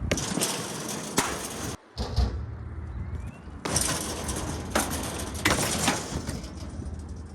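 A BMX bike being ridden on hard ground: rolling tyre noise in two stretches, with a few sharp knocks from the bike, cut off abruptly about two seconds in.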